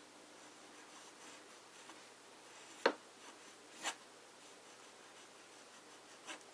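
Faint scratching of a broad fountain pen nib gliding over paper as it writes, the nib smooth and wet. Two sharp clicks come about three and four seconds in, with a softer one near the end.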